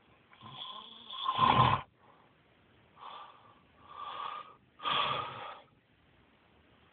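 Snoring: one long, loud snore in the first two seconds, then three shorter snores in quick succession.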